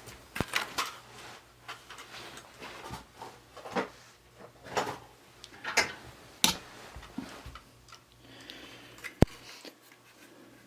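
Hard plastic parts of a Dyson DC29 cyclone canister being handled and taken apart, giving irregular clicks and knocks, one sharper click near the end.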